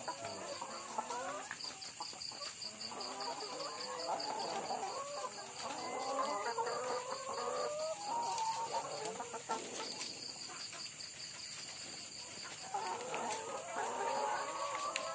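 Many caged brown laying hens clucking and calling over one another, in overlapping waves that are busiest in the middle and again near the end. A steady high-pitched whine and a fast high pulsing run underneath.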